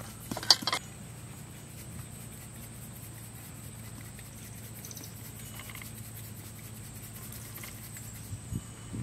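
Rural outdoor background with a steady high insect buzz and a low hum, broken by a few sharp clicks about half a second in.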